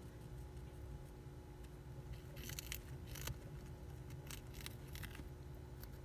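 Hamster chewing a lettuce leaf: faint, crisp crunching in short bursts, mostly about two and a half seconds in and again around four to five seconds, over a low steady background hum.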